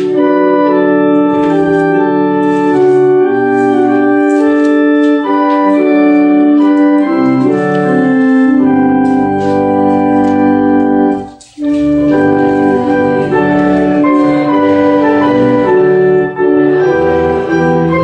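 Church organ playing a hymn in long held chords that move from one to the next, with a short break between phrases about eleven and a half seconds in.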